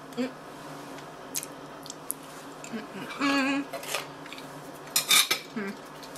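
Metal utensils clinking and scraping against a plate and dish while a cake is cut: a few separate sharp clinks, the loudest cluster about five seconds in.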